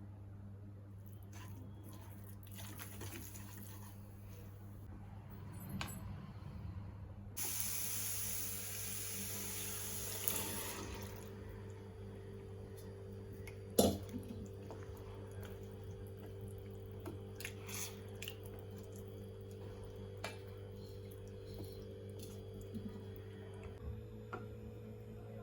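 Water tap running into a sink for a few seconds near the middle, over a steady low hum, with scattered light clinks and one sharp knock soon after the water stops.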